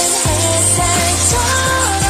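K-pop karaoke track: a voice singing a Korean melody over a steady electronic beat and bass line.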